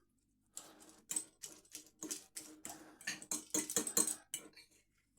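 Metal fork clinking and scraping against a bowl as tuna is spread around in it, a run of irregular taps and scrapes that stops near the end.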